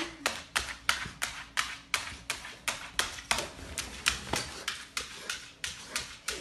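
Small legged walking toy clicking steadily as it moves across a tile floor, about three sharp clicks a second.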